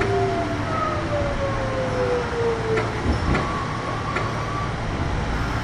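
Kintetsu 1021 series train's Hitachi GTO VVVF inverter whining and falling in pitch as the train slows under regenerative braking, over the steady rumble of the running gear. A few sharp clicks of wheels over rail joints come about three to four seconds in.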